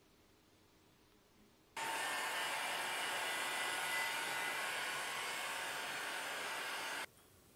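Handheld electric heat gun blowing a steady rush of hot air. It switches on about two seconds in and cuts off abruptly about five seconds later, shrinking heat-shrink tubing over the wires of a micro switch.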